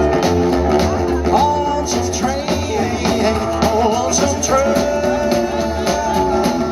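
Live rockabilly band playing: upright double bass, acoustic guitar and hollow-body electric guitar, with a melody line that bends and wavers in pitch over a steady bass pulse.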